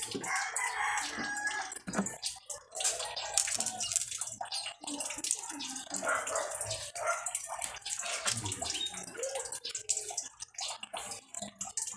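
Nylon fishing line and its plastic spool being handled and turned by hand: a busy crackling and rustling full of small clicks.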